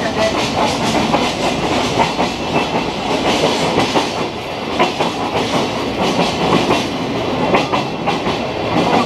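Sagano trolley train carriage running on the rails, a loud steady rumble with irregular clattering and rattling of the wheels and the old wooden car, heard from inside the carriage as it passes through a tunnel.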